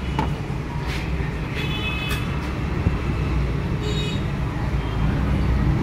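Steady low rumble of vehicle traffic, with a couple of brief high chirps about two and four seconds in.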